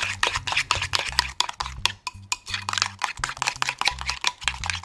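A utensil stirring a thick tartar sauce mixture, with rapid, irregular clicks and scrapes against the side of the container.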